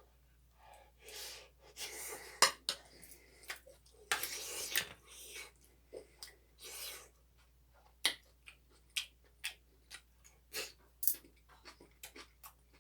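Close-miked eating sounds of a person eating fried rice. In the first few seconds there are several longer scraping or rustling noises. From about eight seconds in comes a run of small, sharp, wet mouth clicks from chewing.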